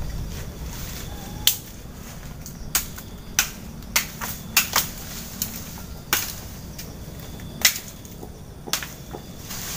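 Machete chopping into branches and saplings: about ten sharp chops at irregular intervals.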